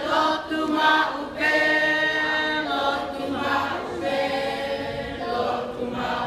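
A group of children singing together in unison without instruments, with some long held notes.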